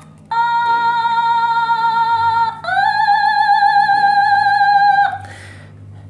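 Original Otamatone electronic instrument played with a finger on its stem: two long held notes, the second sliding up into pitch and wavering with vibrato, stopping about five seconds in.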